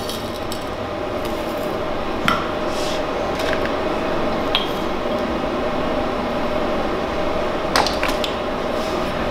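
A few light clinks and taps from glass jars and a cloth bag of dried botanicals being handled on a table, the sharpest near the end, over a steady room hum.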